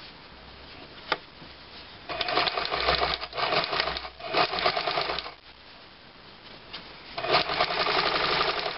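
Older domestic sewing machine with a channel (piping) foot stitching piping onto a cushion cover in two runs: about two seconds in for some three seconds, then again from about seven seconds in. A single click comes about a second in.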